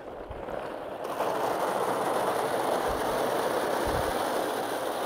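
A binful of ping pong balls poured from one plastic trash bin into another, a dense continuous clatter that thickens about a second in and then holds steady.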